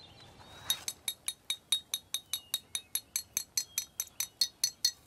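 A steady run of sharp, high, ringing clicks, about five a second, beginning just under a second in, like a ticking percussion beat. Faint bird chirps sound behind it.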